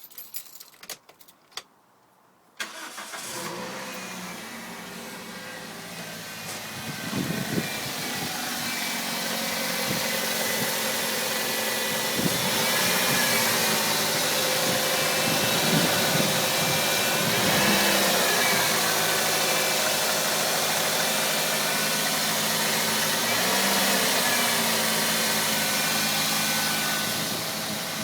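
A few sharp clicks, then a 2004 Toyota Celica VVT-i's four-cylinder engine starts about two and a half seconds in and runs at idle, growing louder over the next several seconds, with its pitch swelling slightly a few times.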